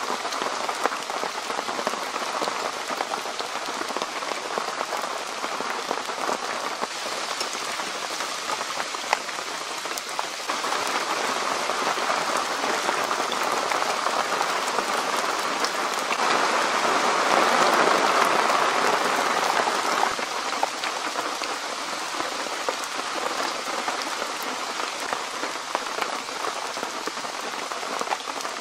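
Rain pouring down steadily, a dense hiss of drops that swells a little louder about two-thirds of the way through.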